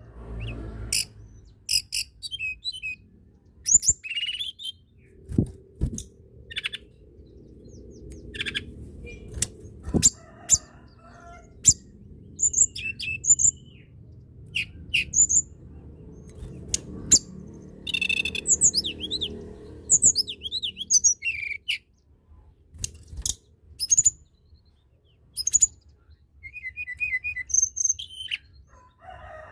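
Tledekan gunung songbird singing: short, high chirps and quick trilled phrases repeated in bursts throughout. A faint low rumble runs underneath through the middle.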